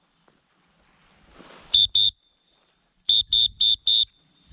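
Electronic dog-collar beeper sounding short high beeps, two quick beeps and then four more about four a second, used as a recall signal to call the bird dog back.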